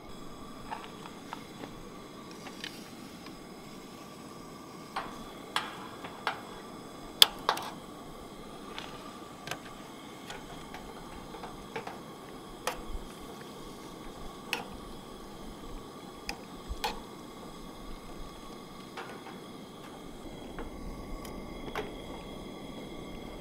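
Metal spoon clinking and scraping against a small aluminium pan while stirring a creamy pasta sauce, in irregular sharp knocks, the loudest about seven seconds in. Under it runs the steady faint hiss of the lit portable gas stove burner.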